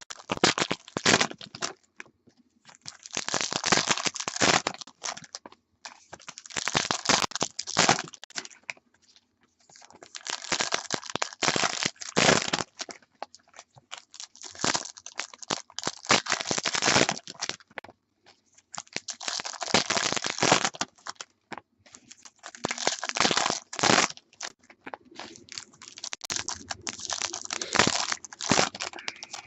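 Crinkling and tearing of foil trading-card pack wrappers as 2014 Bowman Chrome football packs are handled and opened, in bursts of a second or two every few seconds.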